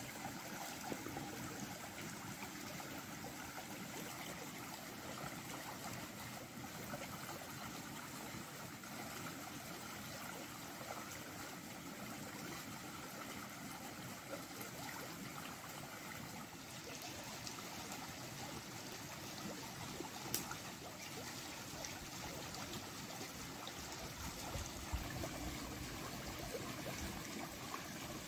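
Shallow stream flowing steadily over stones, with a few faint clicks now and then.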